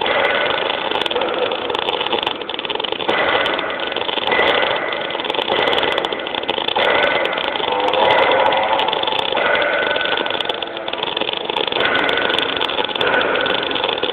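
MIG welding arc burning continuously, a steady dense crackle with many short sharp clicks through it.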